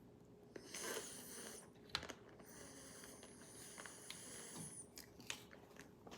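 Faint close-up eating sounds: biting into and chewing a crunchy dessert, with a few sharp crackles and two long, hissing breaths.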